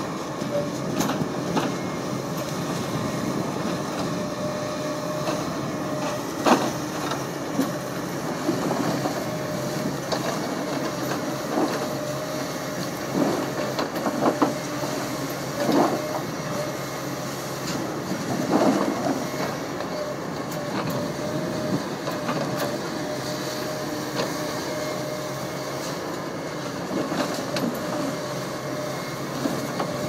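JCB JS200 LC hydraulic excavator's diesel engine running steadily, with its log grapple working through eucalyptus logs and branch debris: irregular sharp knocks and cracks of wood over the steady machine noise.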